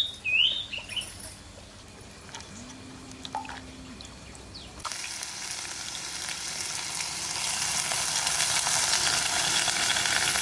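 Onions going into hot oil in a pan and frying with a sizzle. The sizzle starts suddenly about halfway through and grows steadily louder.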